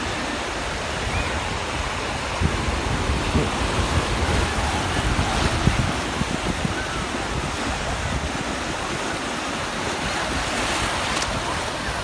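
Small sea waves breaking and washing over the shallows at the shoreline, with wind buffeting the microphone in gusts, strongest between about two and six seconds in.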